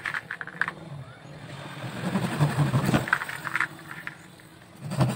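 A vehicle engine running, its low hum swelling about two seconds in, easing off, then rising again near the end. Light clicks of thin bamboo sticks being handled in the first second.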